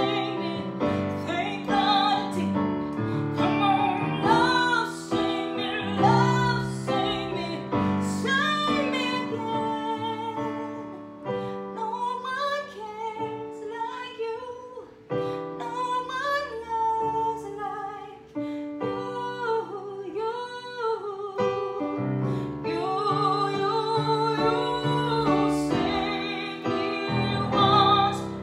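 A woman singing a slow piano ballad while accompanying herself on a grand piano, holding some notes with vibrato.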